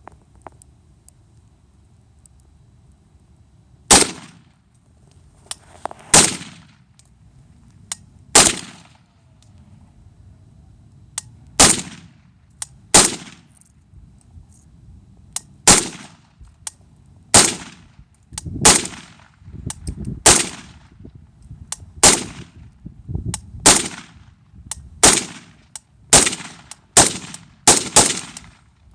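Century Arms C39 AK-47 in 7.62x39 firing about sixteen single semi-automatic shots, the first about four seconds in, then one every second or two, coming faster near the end.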